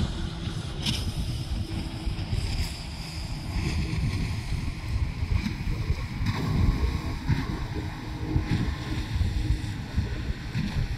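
Wind buffeting the microphone in irregular gusts, with a boat's engine running faintly underneath.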